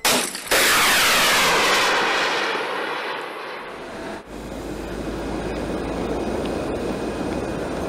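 Aircraft passing overhead: a loud jet-like rush comes in suddenly about half a second in, with a sweeping tone, and slowly dies away. About four seconds in it changes abruptly to a steadier rumbling noise.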